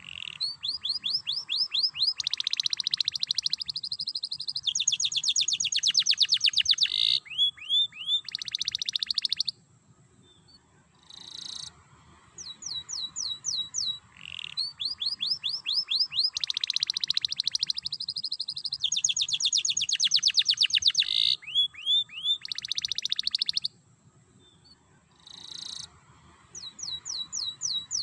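Domestic canary singing a long, high-pitched song of fast trills and rapid rolling repeated notes. It comes in two bouts of about nine seconds each, with a pause of a few seconds between them.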